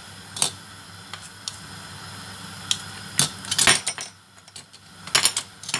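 Water boiling hard in a saucepan on a gas stove, under a series of sharp metallic clinks from kitchen utensils, bunched together in the middle and near the end.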